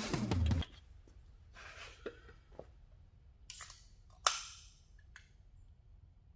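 Drink can being cracked open: a few small clicks and handling sounds, then a sharp crack with a short hiss about four seconds in.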